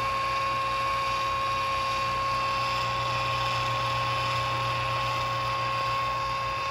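Chugger brewing pump's 115-volt electric motor running steadily as it recirculates wort through the mash: a steady hum with a thin, even whine over it.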